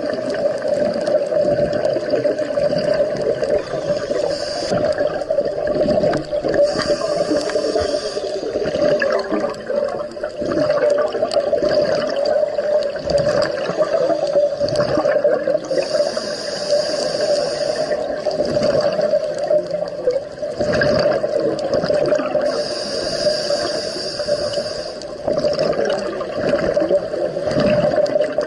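Scuba diver's regulator underwater: breathing with exhaled bubbles gurgling, a hiss returning every six or seven seconds, over a steady hum.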